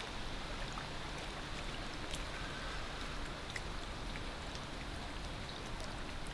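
Steady wind rushing through lakeside trees and buffeting the microphone, with a few faint ticks over it.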